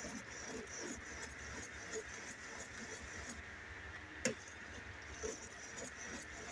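Metal ladle stirring thick glutinous-rice cocoa porridge (champorado) in a stainless steel pot: faint scraping and small clicks, with one sharp clink of the ladle against the pot about four seconds in, over a steady faint hiss.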